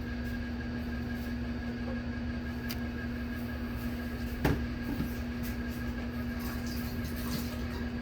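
An engine running steadily with an even hum, with one brief knock about four and a half seconds in.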